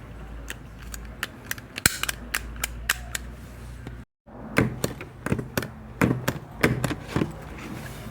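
A stapler being worked again and again: a run of sharp, irregularly spaced clicks and snaps. A brief cut to silence about halfway through is followed by a denser run of louder clicks.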